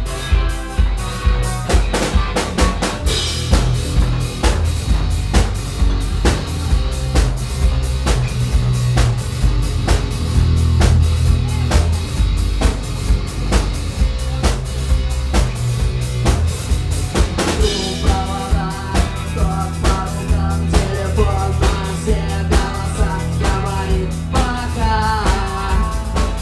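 Rock band playing an instrumental introduction: a drum kit keeps a steady, driving beat over bass, and a melodic guitar line comes in about two-thirds of the way through.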